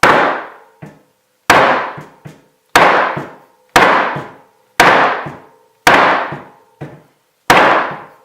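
Hard hammer blows, seven heavy strikes about a second apart, driving a tight bearing out of a Novatec bicycle hub. Each blow leaves a short metallic ring, and a few are followed by a lighter rebound tap. The bearing is barely shifting, if at all.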